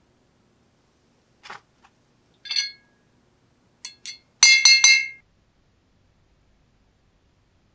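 Small steel hardware clinking against a glass jar as it is fished out of a vinegar rust-removal soak: a few light taps, then three loud, ringing clinks in quick succession about four and a half seconds in.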